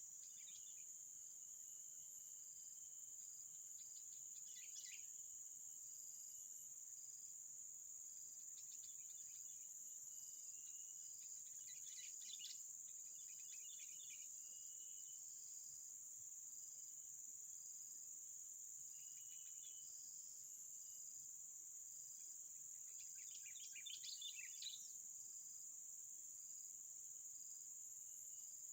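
Steady high-pitched insect chorus with a faint pulse about once a second, and short bursts of bird chirping several times over it, the strongest near the end.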